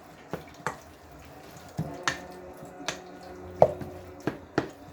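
Kitchen utensil knocking and clicking against a pot or bowl while turnip is mixed with butter: about eight sharp, irregular knocks.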